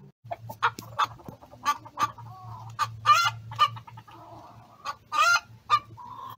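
A hen clucking: a run of short calls, with two longer, louder squawks about three and five seconds in.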